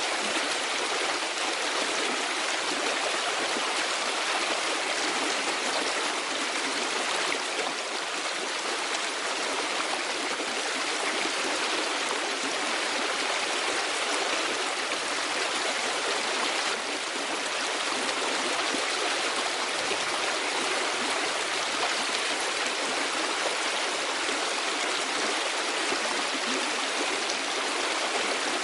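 Running river water, a steady even rush with no breaks.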